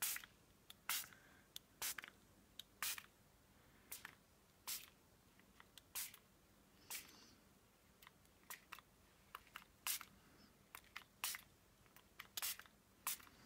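Hand spray bottle misting plain water in short squirts, about one a second, some in quick pairs, over and over.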